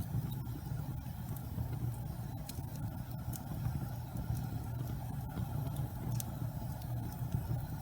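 Wood fire burning: a steady low rumble with scattered sharp crackles and pops.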